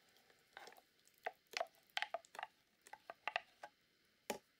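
Hot, thick apple purée being poured from a blender jug into a stainless steel pot and stirred with a wooden spoon: a faint string of short, irregular wet splats and light knocks, about a dozen in all.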